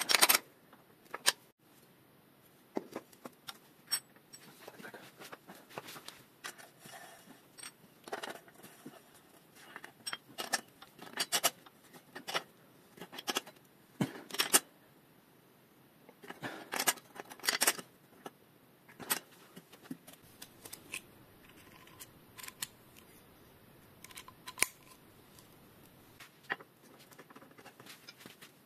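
Hand tools working a bicycle's bottom bracket and crankset: scattered metal clicks and knocks, some in short quick clusters, from a ratchet wrench turning and parts being handled.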